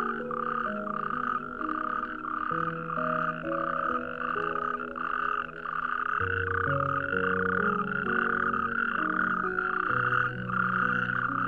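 A toad calling without pause, a long run of croaks repeating about twice a second, over soft background music with slow held notes.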